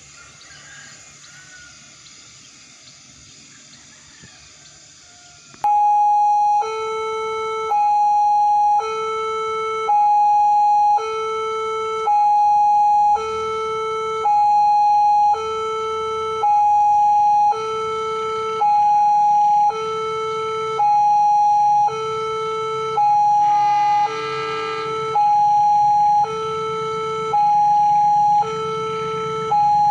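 A faint steady hiss, then about five and a half seconds in a loud electronic two-tone warning alarm starts, alternating a higher and a lower note in a steady cycle of about one and a half seconds.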